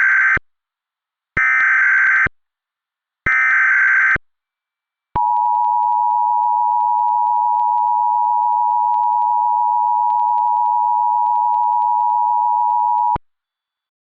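Emergency Alert System header: three short bursts of screechy digital SAME data tones about a second apart, then the two-tone EAS attention signal held steady for about eight seconds before cutting off. It is the alert tone sequence that opens a mock tornado emergency broadcast.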